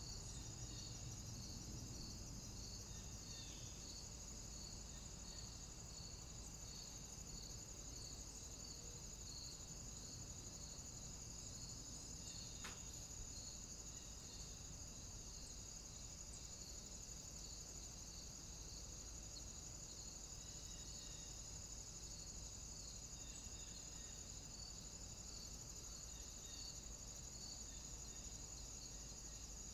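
Faint, steady, high-pitched electronic whine from a trail camera's own circuitry, with a soft pulse about every three-quarters of a second, over a low, even hiss. A single sharp click about 13 seconds in.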